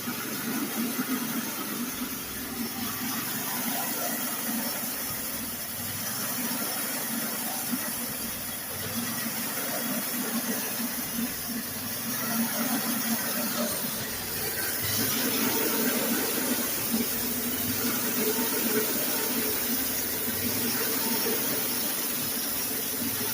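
Homemade sawmill running: a steady engine hum under a loud, even hiss.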